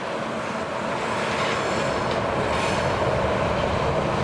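Freight train's container wagons rolling past, a steady rumble of wheels on rail that grows a little louder. Faint high wheel squeals come and go around the middle.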